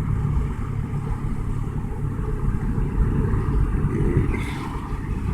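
Steady engine and road rumble inside a 1995 Toyota Camry's cabin as it drives under acceleration, with no clear knock.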